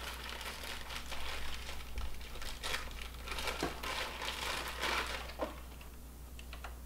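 Packaging crinkling and rustling in the hands as a small package is opened and its contents pulled out, in irregular bursts that thin out near the end.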